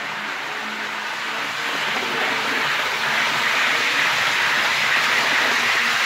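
Hornby OO gauge Class 373 Eurostar model train running round the layout: a steady whirring rush of motor and wheels on the rails that grows gradually louder.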